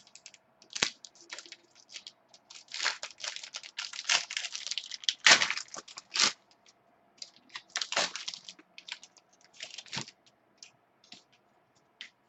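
Trading cards and their plastic packaging or sleeves being handled: irregular crinkling and crackling with sharp clicks, densest in the middle.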